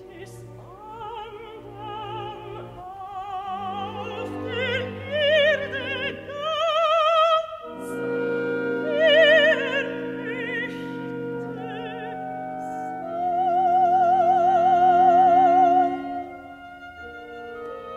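Operatic soprano singing a German art song with wide vibrato over a sustained symphony-orchestra accompaniment. Near the end she holds a long, loud high note, then stops, leaving the orchestra playing softly.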